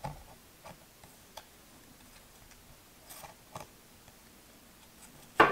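Thin, glossy oracle cards being slid off a deck and laid onto a second pile by hand: scattered soft clicks and taps of cardstock, with the sharpest one near the end.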